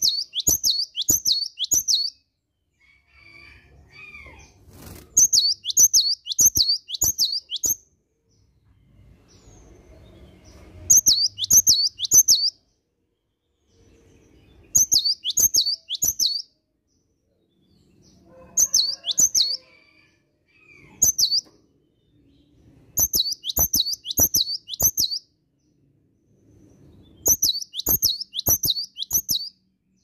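Cinereous tit (gelatik batu) singing: bouts of quick, repeated high notes, each bout lasting about two seconds, coming again every few seconds.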